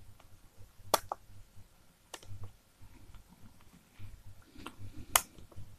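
A few sharp clicks from operating a laptop, with a quick double click about a second in and single clicks later, over faint low handling rumble.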